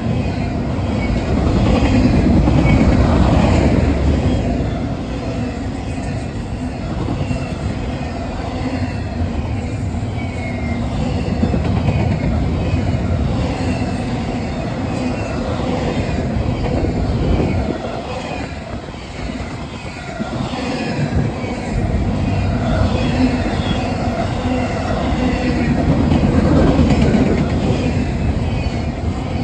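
Loaded double-stack intermodal freight cars rolling past close by: a steady heavy rumble and clatter of steel wheels on the rail, with short high-pitched wheel squeals, easing briefly about two-thirds of the way through.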